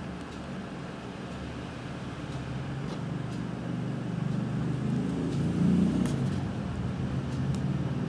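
A low, steady mechanical rumble that grows louder between about four and six seconds in, with a few faint clicks.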